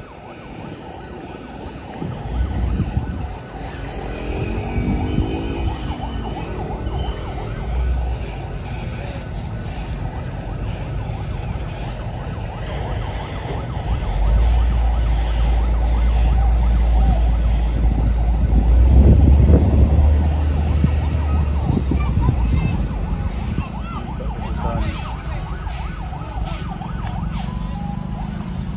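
Heavy truck engine running as the truck manoeuvres, its low rumble building and loudest about two thirds of the way through, with a warbling, siren-like tone briefly about five seconds in.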